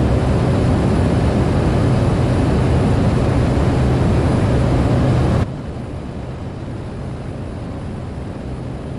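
Steady cockpit drone of a Cessna 208B Grand Caravan's single PT6A turboprop engine and propeller in flight, with a low, even hum under a wide noise. About five seconds in, the overall noise drops abruptly to a clearly lower, still steady level.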